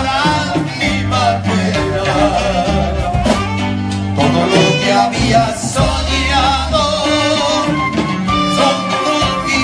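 Live Mexican band music: men singing into microphones over acoustic guitars, with a deep bass line and a steady beat.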